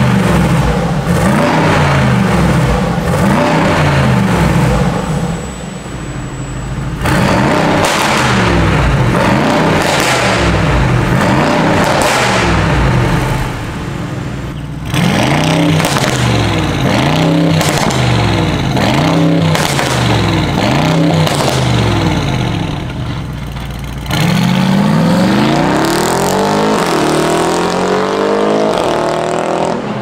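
Mercedes-AMG G63's twin-turbo V8 through catless downpipes and a valved performance catback, the exhaust valves closed at first, blipped over and over in quick revs about a second apart in three runs. Near the end it pulls hard, the pitch climbing, dropping back once and climbing again, then fading.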